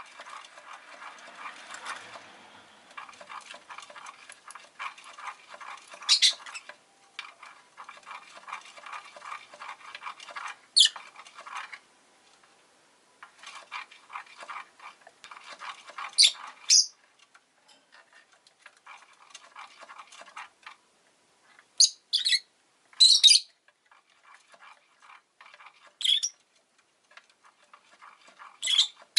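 Rosy-faced lovebird giving short shrill calls every few seconds, about ten in all, the loudest clustered after about 22 s. Through the first two-thirds they sit over long stretches of fast, scratchy chatter that thins out after about 18 s.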